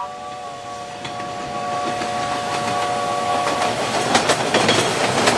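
Train sound effect: a chord of steady horn tones sounds for about three and a half seconds while the clatter of wheels over rail joints builds steadily louder.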